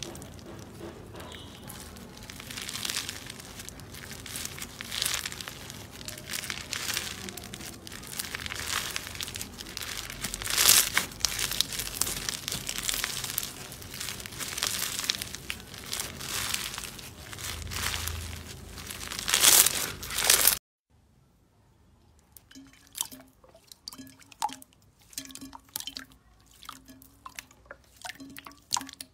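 Foam-bead slime (floam) being squeezed and stretched by hand, crackling and crunching with many quick snaps as the beads rub and pop. About two-thirds of the way through it cuts off suddenly, and quieter wet squishes and sticky pops follow as hands press clear purple slime in a bowl.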